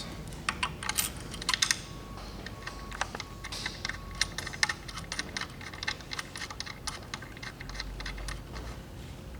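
Irregular light clicks and taps of metal machine parts being handled and fitted: the tunnel of a star wheel assembly being positioned against the hopper, over a steady low hum.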